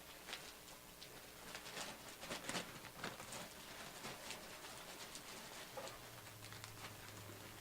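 Faint handling noises: scattered light clicks and rustles, most of them about two to three seconds in, with a faint low hum in the last second and a half.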